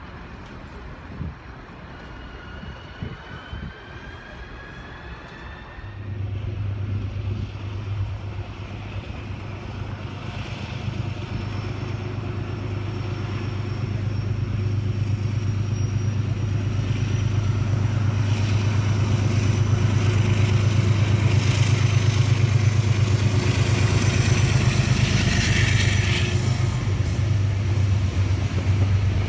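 Metro-North diesel locomotive hauling a train of coaches approaches and passes close by. Its engine gives a steady low hum that grows louder as it nears, with rumble from the wheels on the rails. Until about six seconds in, a faint rising whine comes from an electric commuter train pulling away.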